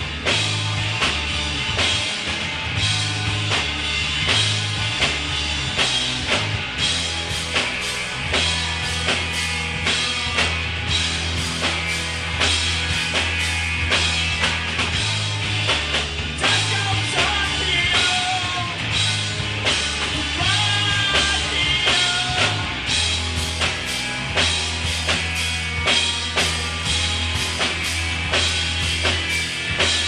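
Rock band playing live: a steady drum-kit beat over a stepping bass line and guitar, with singing in the middle stretch.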